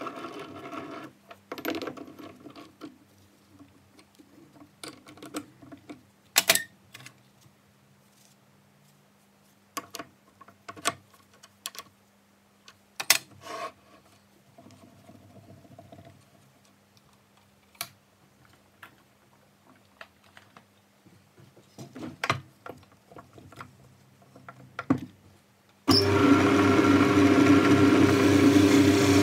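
Metal clinks and knocks while a bar is clamped in a lathe's three-jaw chuck and a quick-change tool holder is fitted and tightened. Near the end the metal lathe starts and runs with a steady hum.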